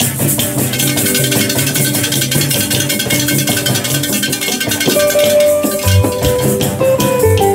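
Live choir music: clusters of small gourd rattles shaken in a fast, steady rhythm over a bass line and other accompaniment, with choir voices.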